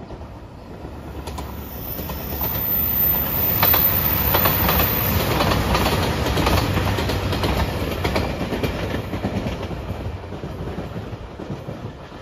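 JR Shikoku 2700 series diesel train passing at speed: the engines and wheels build up, peak for a few seconds and fade away, with a run of wheel clicks over the rail joints as it goes by.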